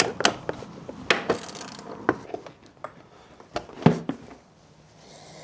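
Small metal hardware being handled by hand: scattered light clicks and knocks of bolts, key rings and cables, with a brief rustle about a second in and a sharper knock near four seconds in.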